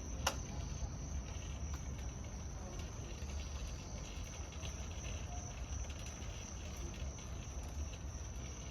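Steady rain falling, with a constant thin high tone over it and a low rumble underneath; one sharp click shortly after the start.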